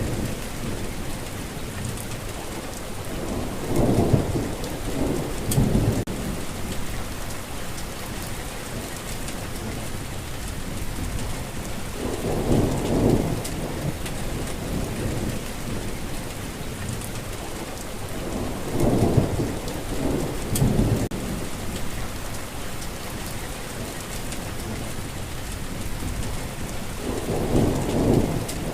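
Steady rain falling, with low rumbles of thunder rolling in about every seven or eight seconds, four in all.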